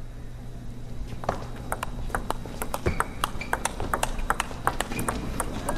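Table tennis rally: the ball clicks sharply off the players' rubber-faced bats and bounces on the table in quick, even alternation, more than a dozen hits starting about a second in and running to the end.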